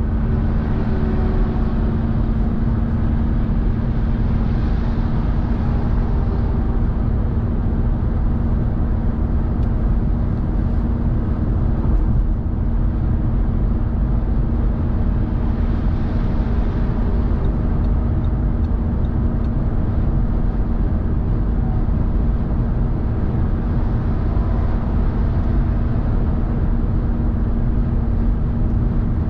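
Car driving at motorway speed: steady tyre roar and road noise with a constant hum underneath, unchanging throughout.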